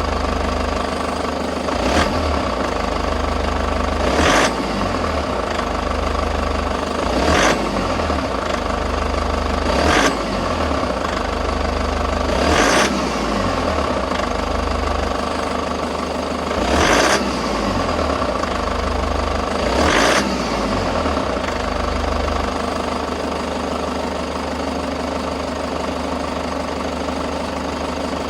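Toyota HiAce KDH206V's 1KD-FTV turbodiesel idling with its usual diesel clatter, broken seven times at uneven intervals by a short metallic shaking rattle, like a washer shaken on a bolt; the rattles stop about two-thirds of the way through. The owner puts the noise down to idle hunting, the intake air and fuel amounts swinging back and forth, with sludge in the EGR valve, intake manifold or throttle valve a likely cause.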